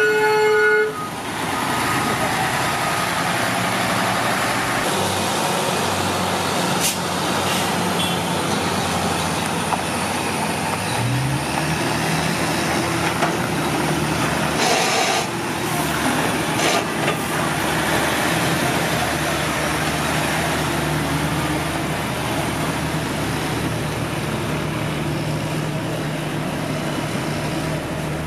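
Heavy diesel engine of a loaded semi-trailer dump truck running as the rig drives past, its note rising about a third of the way through. A short hiss, like an air-brake release, comes about halfway through.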